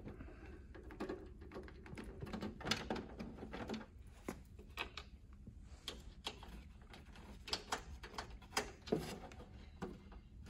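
A hand screwdriver backing out the sheet-metal front-cover screws of an ABB VD4 vacuum circuit breaker, with scattered, irregular small clicks and metallic taps.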